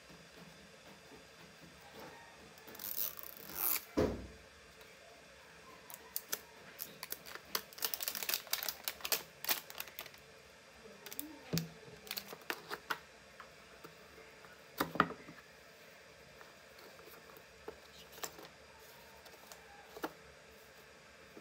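Hands unpacking a plastic sunscreen bottle from its cardboard retail packaging. There is a rustle and tear of card about three seconds in, ending in a knock, then a long run of small clicks and taps, with another knock about fifteen seconds in.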